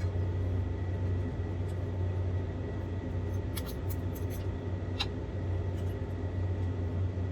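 Steady low hum in a small room, with a few light clicks of eating utensils against a plate around the middle.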